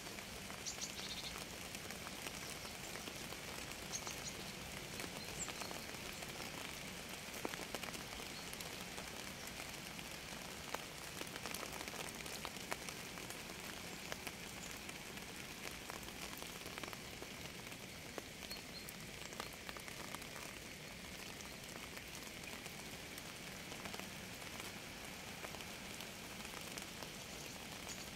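Steady rain falling, with many individual drops pattering and ticking on a surface. A few faint short high chirps come through in the first several seconds.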